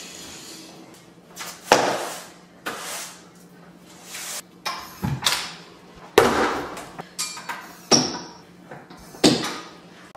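Irregular knocks and clatters of housework, among them bar stools being shifted at a kitchen island: about eight sharp bumps, the loudest about two seconds in.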